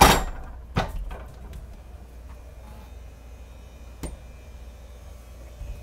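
An engine-room door is swung open with a loud clunk at the start. A smaller knock follows just under a second later, and there is a sharp click about four seconds in as the door is pushed back by hand. A steady low hum runs underneath.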